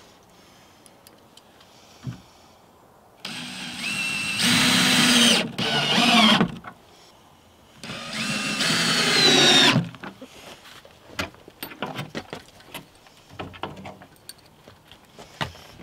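Cordless drill driving screws through a metal hinge into wood: the motor runs twice for a few seconds each time, rising in pitch as it spins up, then stops. Light clicks and knocks of handling follow.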